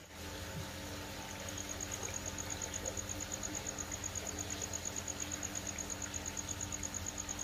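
Aquarium air pump (aerator) running with a steady electric hum, with water bubbling and churning in the tank. About a second in, a high, rapidly pulsing tone, about seven pulses a second, joins it and keeps going.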